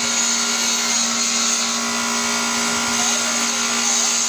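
Bench grinder running with a steady motor hum while a lathe toolbit is ground by hand on its wheel, giving a steady grinding hiss that brightens now and then as the bit is pressed to the wheel.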